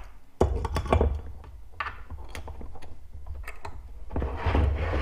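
Metal aluminum injection mold halves being closed and a C-clamp fitted and screwed down on it: a run of sharp metal clicks and knocks, with denser scraping and handling noise near the end.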